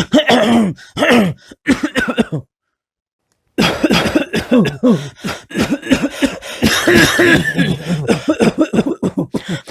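A man coughing in a fit: a few coughs, a pause of about a second, then a long run of rapid coughs one after another.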